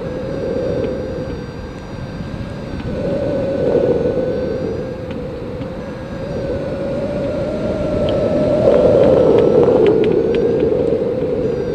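Wind rushing over a hang glider in flight, with the faint steady drone of the tow aircraft's engine ahead. The rush swells about four seconds in and again near the end.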